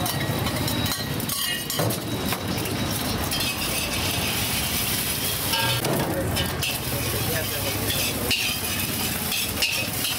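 Beaten egg sizzling in hot oil in a steel wok while a metal spatula scrapes and breaks it up, with repeated short clinks of the spatula against the wok.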